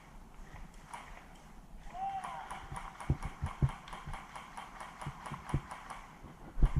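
Footsteps of a person walking outdoors, as irregular dull thuds about half a second apart.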